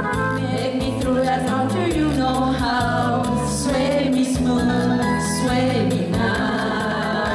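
Women singing together through microphones over musical accompaniment, with a bass line and a steady beat.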